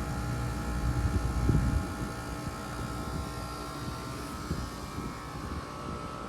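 Bard wall-mount air conditioner running in cool mode: a steady compressor and condenser-fan hum with several constant tones, over a fluctuating low rumble that is strongest in the first two seconds and then eases.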